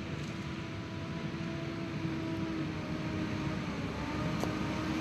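Engines of heavy military launcher trucks running as the trucks drive closer: a steady hum over engine noise, growing gradually louder.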